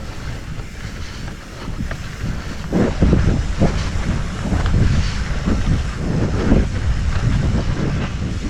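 Wind buffeting the microphone over the rattle and knocks of a mountain bike riding down a rough trail. It gets louder and busier about three seconds in.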